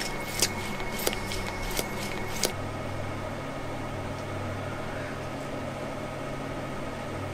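Sharp clicks from a Minipresso hand-pump espresso maker being pumped, about half a dozen strokes in the first two and a half seconds, as espresso is pressed out into the cup. After that only a steady low hum remains.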